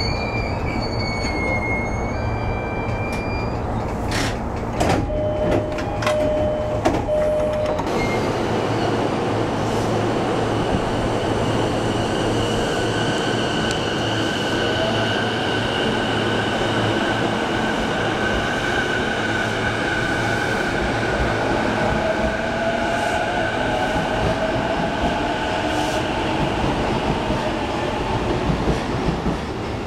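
JR East E233 series electric train pulling away along a station platform: its electric motor whine rises in pitch as it gathers speed, over steady wheel and rail noise. Before that there is a short squeal and a few sharp clicks.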